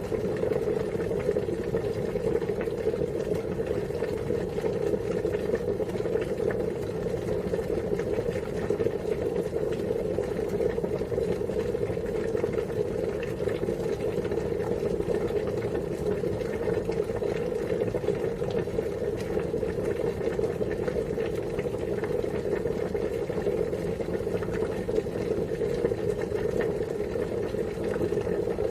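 Water boiling: a steady, dense bubbling that keeps an even level.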